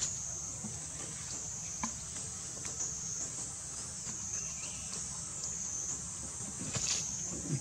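Steady high-pitched insect chorus, swelling and dipping gently about once a second, over a low rumble, with a few faint clicks and snaps.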